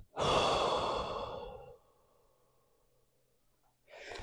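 A woman's long audible exhale, a sigh that starts loud and fades out over about a second and a half. Near the end comes a short, softer breath.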